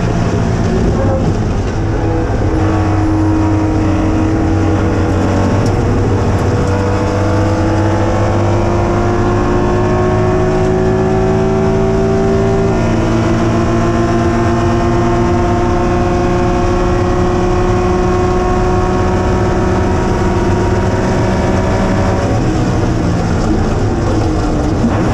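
Porsche RSR race car's flat-six engine under way, heard inside the cabin, its note climbing slowly in pitch. About halfway through there is one gear change, where the pitch drops and starts climbing again; near the end the steady note breaks up.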